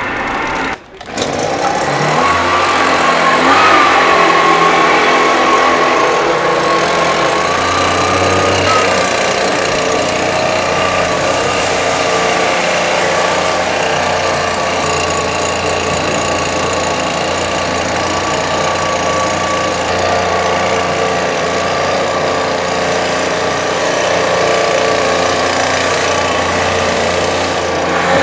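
Gas leaf blower powering a homemade hovercraft, running steadily after a short break about a second in, and revving up briefly a couple of times early on.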